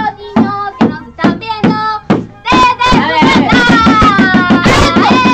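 Music with a steady beat and a voice-like melody. About halfway through it turns louder and fuller, with long notes sliding downward, then stops abruptly near the end.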